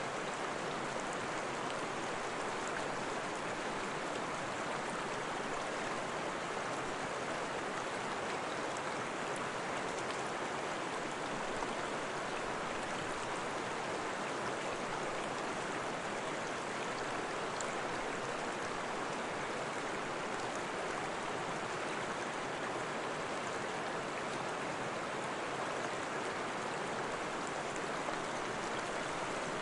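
Steady, even rush of running water, as from a stream.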